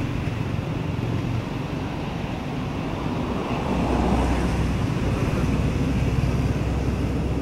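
Steady low rumble of road traffic, swelling about three and a half seconds in.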